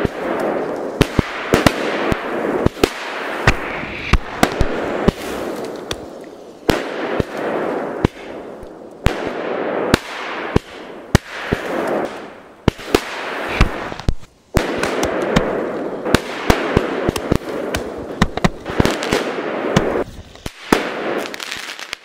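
Firecrackers and fireworks going off: many sharp bangs and pops scattered irregularly over a hissing crackle that swells and dies away several times.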